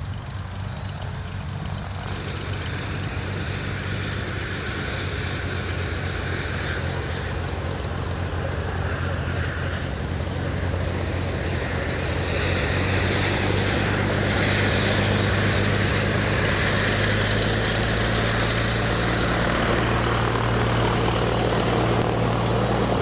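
Propeller and piston engine of a single-engine Cessna light aircraft running at taxi power, a steady low drone that grows louder about halfway through.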